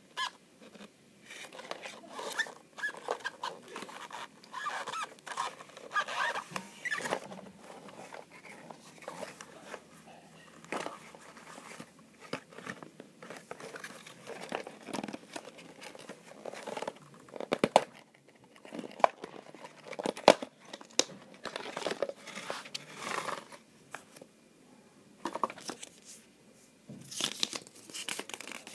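Hands handling the card box and paper inserts of a headphone package: irregular rustling, scraping and tapping, with a few sharper clicks.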